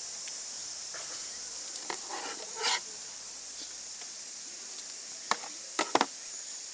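Steady high-pitched insect chorus, with a few sharp clicks and knocks about two seconds in and several more near the end.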